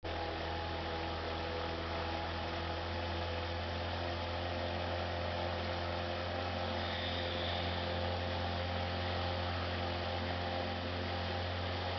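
Small motorboat's engine running at a steady speed, a constant low drone with steady higher tones above it.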